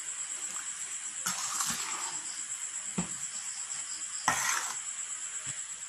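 A metal spoon stirring and scraping thick flour batter in a stainless steel bowl, with a few short scrapes and clicks against the bowl; the loudest scrape comes a little over four seconds in.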